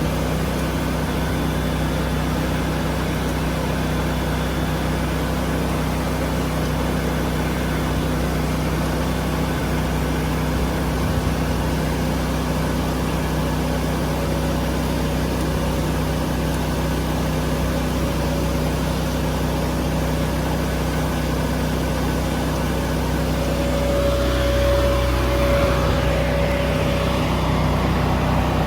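Ford 6.4 Power Stroke diesel engine idling steadily. About 24 seconds in, a higher steady whine grows stronger and the sound gets a little louder.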